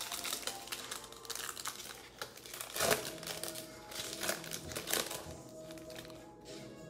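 Plastic foil wrapper of a Panini Mosaic football card pack crinkling and crackling as it is handled and opened, the loudest crackles about three and five seconds in, over background music.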